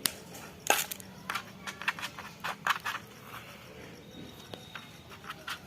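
Slime being squished and mixed by hand, giving irregular sticky clicks and pops, most of them in the first half.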